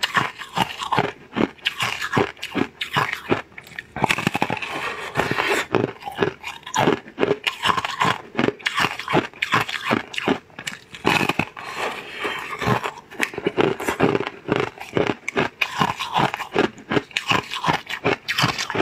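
Close-up eating sounds: crunchy bites and chewing of a thin, brittle, glassy crisp sheet, with sharp cracks repeating a few times a second.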